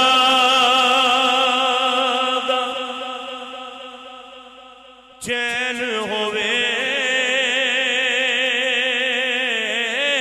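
A man singing a Punjabi manqabat, a Sufi devotional praise song, in long held notes with a wavering vibrato. The first note fades away, and about halfway through a second long note starts suddenly and is held.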